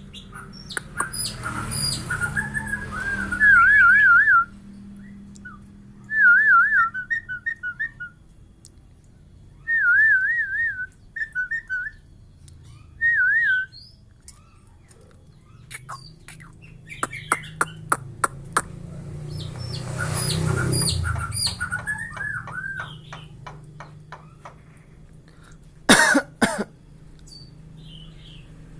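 Javan myna whistling in warbling, wavering phrases, four bursts in the first half, followed by a run of clicks and harsh squawk-like calls, with a short loud harsh call near the end.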